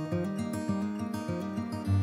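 Background music: gentle acoustic guitar, plucked and strummed.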